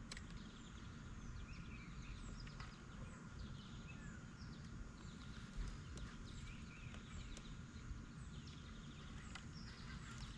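Birds chirping and singing on and off over a low, steady background rumble, with a few faint clicks.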